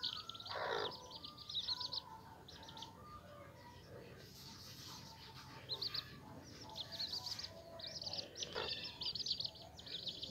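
Young chicks peeping: runs of short, high chirps in quick succession, broken by pauses, with the busiest stretches at the start and from about seven seconds in.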